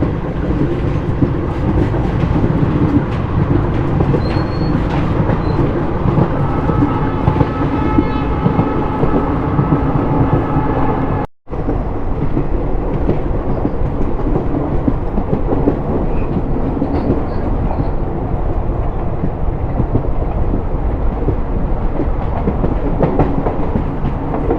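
Diesel-hauled passenger train running at speed, heard on board: a steady rumble with the clatter of wheels over rail joints. The locomotive's horn sounds for a few seconds just before the middle. The sound cuts out for a split second about halfway through.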